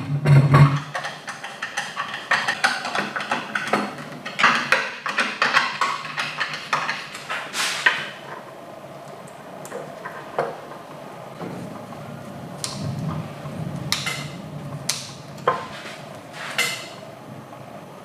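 Handling noises from reassembling an electric coffee grinder: a dense run of quick clicks, taps and scrapes as the hopper is seated on the motor housing. After about eight seconds they thin to single sharp clicks every second or two as the electrical wires and crimp connectors are worked.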